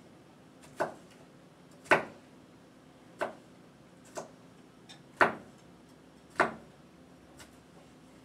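Chef's knife chopping on a plastic cutting board, dicing pepper strips into small cubes: separate sharp knocks about once a second, uneven in spacing and strength.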